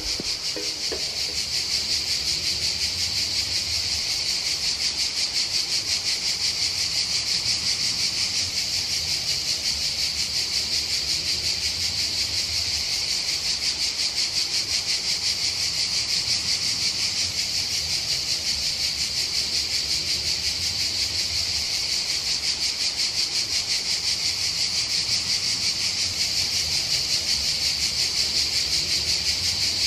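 Cicadas singing in a dense, steady chorus, loud and high-pitched with a fast pulsing shimmer.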